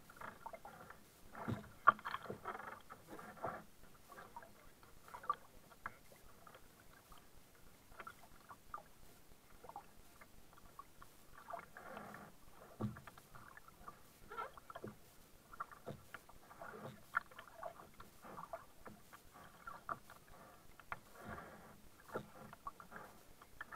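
Kayak paddle strokes: the blades dip and splash in shallow water every second or two, with small knocks and water lapping at the hull. The loudest is a sharp click about two seconds in.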